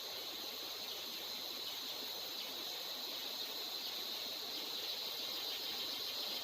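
Steady chorus of insects, an even high-pitched drone over a soft hiss.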